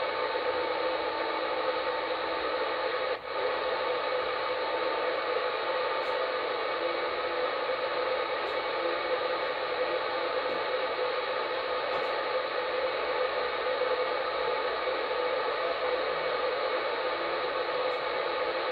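Single-sideband CB radio receiving on channel 38 (27.385 MHz) with nobody transmitting, putting out a steady hiss of band static. The hiss briefly drops out about three seconds in.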